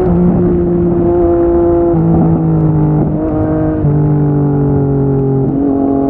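Yamaha MT-09 three-cylinder engine running through a Yoshimura R55 slip-on exhaust. Its note steps down in pitch about four times at gear changes, holding a steady tone between shifts.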